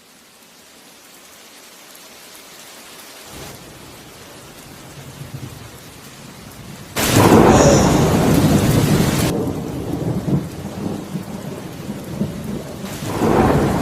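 Thunderstorm: steady heavy rain with thunder rumbling in a few seconds in. A sudden loud thunderclap comes about halfway through, and another roll of thunder swells near the end.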